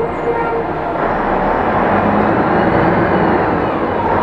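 City bus under way, its engine and drivetrain running steadily with road noise, heard from on board. A faint whine rises and falls in the second half.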